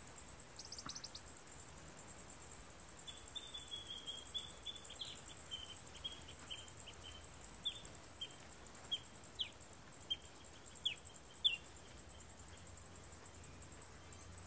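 A steady high-pitched chorus of insects, a rapid fine trill. Over it a bird calls in a string of short chirps and quick downward-slurred notes through the middle of the stretch.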